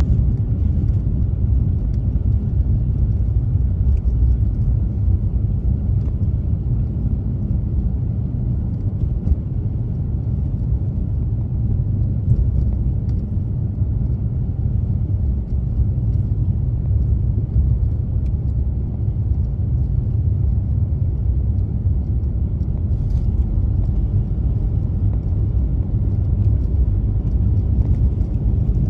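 Car driving on a snowy road: a steady low rumble of engine and tyre noise.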